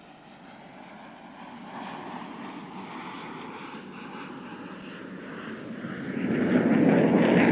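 F-16 fighter jet making a low pass, its jet engine noise building steadily and growing loud over the last second and a half as it comes closer, with a faint whine falling in pitch in the middle.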